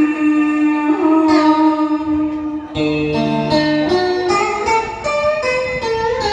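Instrumental music between sung verses: a plucked string instrument like a guitar plays a melodic line. It opens on a long held note, and a lower note joins about three seconds in.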